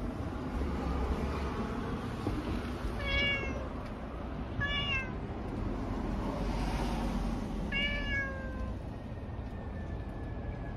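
A cat meowing three times, two short calls close together and then a longer call that falls in pitch.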